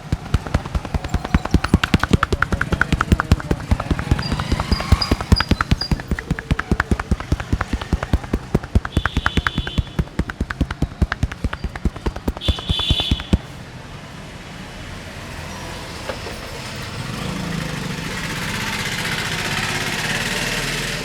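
Rapid rhythmic percussive hand slaps of a head massage, several a second, stopping about two-thirds of the way in. Then a rising wash of street traffic noise swells toward the end.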